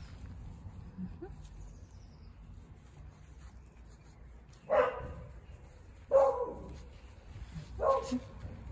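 Cavalier King Charles Spaniel giving three short barks about a second and a half apart in the second half, while tugging at a toy in play.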